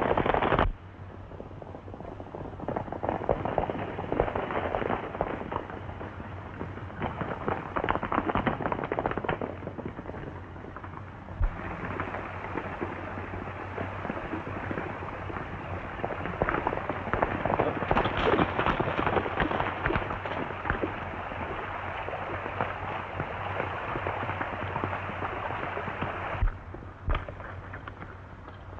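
Horses galloping: a dense, rapid clatter of hoofbeats that keeps changing in strength, with a couple of sharp cracks, one about eleven seconds in and one near the end.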